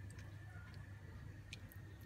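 Faint, light clicks and soft sounds of a wooden spoon putting cooked spinach onto a china plate, over a low steady hum.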